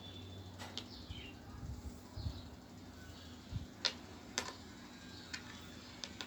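Knitting needles clicking faintly and irregularly as purl stitches are worked, a few sharp ticks spread over several seconds.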